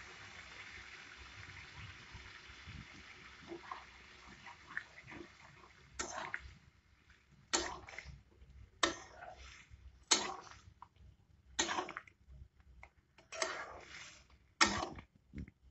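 Water added to the hot curry in a kadai sizzles, the hiss fading over the first few seconds. Then a spatula stirs the curry in about seven strokes, one every second and a half, scraping the pan.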